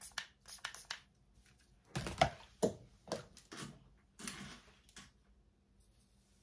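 Scattered handling noises: short clicks, taps and brief rustles, with a few louder knocks about two to three seconds in.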